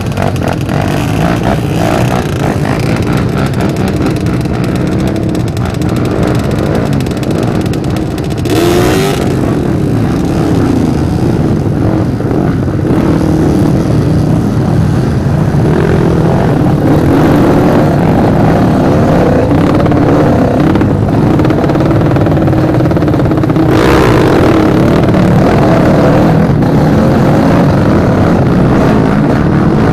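Trail motorcycle engine running loud and close, its revs rising and falling as the bike is ridden. Two short bursts of hiss cut in, about nine seconds in and again near twenty-four seconds.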